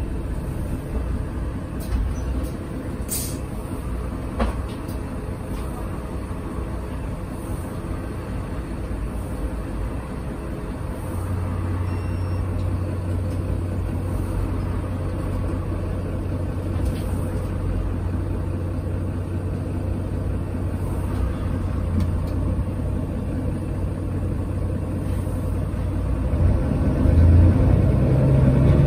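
Mercedes-Benz Citaro city bus heard from inside the passenger saloon, its engine running steadily. A short sharp hiss comes about three seconds in. The engine grows louder near the end.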